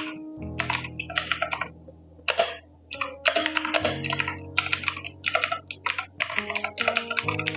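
Typing on a Cosmic Byte Artemis mechanical keyboard with blue switches: quick runs of clicky keystrokes in bursts with short pauses between them.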